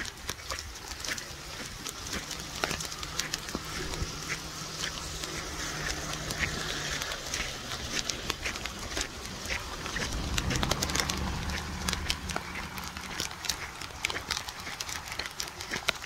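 Torrential rain hissing steadily, with many sharp taps of drops striking close to the phone's microphone. A low rumble swells about ten seconds in and fades a few seconds later.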